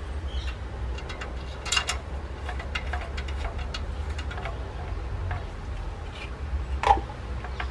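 Scattered light clicks and taps of hands working on a Mamod SE2a toy steam engine's boiler as the fitting on top is put back after filling, with a sharper knock near the end, over a steady low rumble; the engine is not running.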